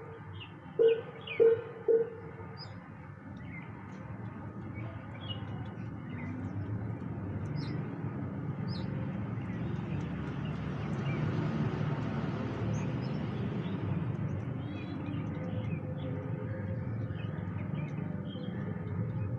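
Outdoor bird ambience with brief high chirps scattered throughout. Three short, loud pitched blasts come in the first two seconds. A low traffic-like rumble swells through the middle and then eases off.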